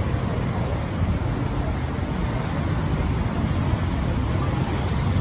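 Steady low rumble of road traffic, with no distinct events.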